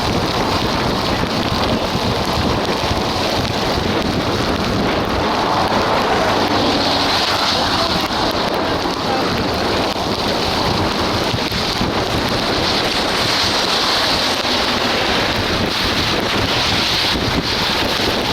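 Wind buffeting the microphone during a ride through a heavy rainstorm, a loud steady rushing noise that does not let up, with rain mixed in.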